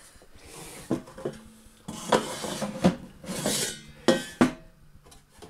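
Plastic air fryer basket scraping and sliding across a wooden table as it is moved by hand, with a few knocks as it is picked up and set down.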